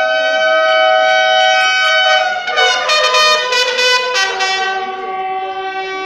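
Military bugles sounding a ceremonial call together: long held notes, quicker note changes a little past the middle, then one long lower note that fades near the end.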